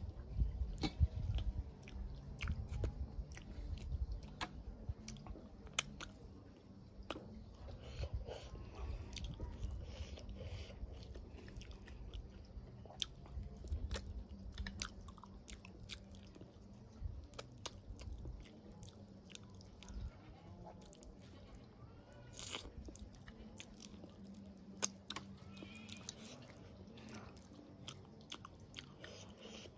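A person chewing mouthfuls of rice and dal eaten by hand, with many short mouth clicks. The chewing is loudest in the first few seconds.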